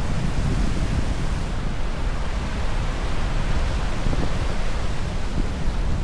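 Ocean surf washing up on a sandy beach, a steady rushing noise, with wind buffeting the microphone as a low, fluttering rumble underneath.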